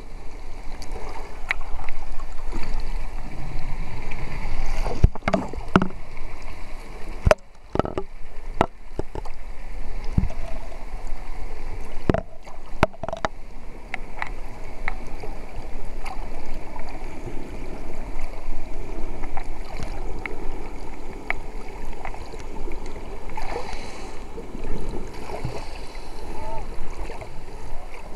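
Underwater ambience picked up by a camera in its housing: a steady rushing water noise with scattered sharp clicks and knocks, several of them between about five and thirteen seconds in.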